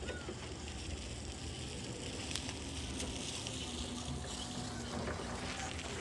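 Calm sea washing at the shoreline: a steady hiss with fine crackling over a low rumble.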